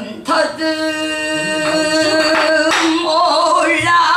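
A woman singing pansori solo, holding long, wavering notes in a strained, husky voice, with two sharp knocks between phrases.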